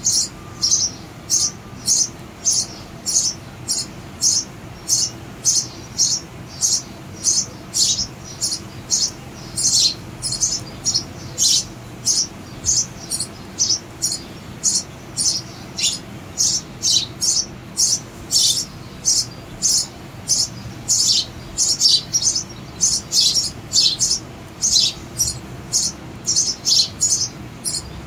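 Sparrow chicks chirping from a nest box: a steady, unbroken run of short high chirps, about two a second, the occasional one sliding downward.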